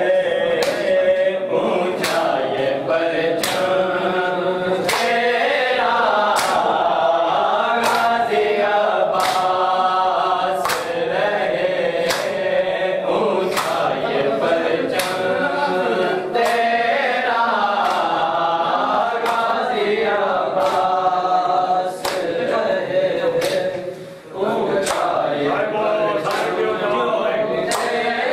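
A group of men chanting a noha together, with sharp slaps of hands on bare chests (matam) keeping a steady beat about every three-quarters of a second.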